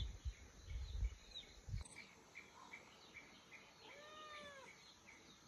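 A young orange tabby kitten gives one meow about four seconds in, rising and then falling in pitch. Faint chirps repeat about three times a second in the background.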